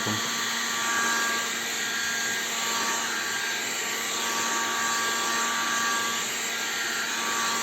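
Heat gun blowing steadily: a continuous fan hiss with a faint motor whine, heating the screen edge to soften the adhesive holding the glass.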